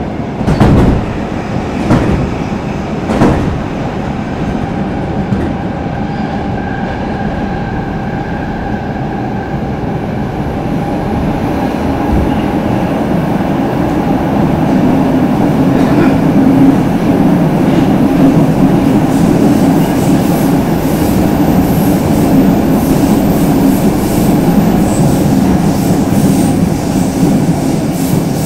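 Stockholm Metro C6 subway car running, heard from inside the carriage: three sharp knocks in the first few seconds, then a steady rumble of wheels on rails that grows louder about twelve seconds in, with a thin high whine of the wheels in the last several seconds.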